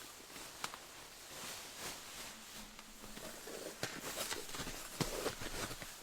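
Crunching steps and handling noises: irregular crunches, rustles and sharp clicks of a person moving about and working in snow, getting busier and louder about halfway through.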